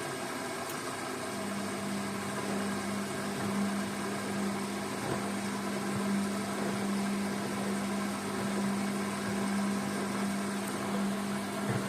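Hotpoint Ariston washing machine running mid-cycle: a steady noise, with a steady hum that comes in about a second in and holds.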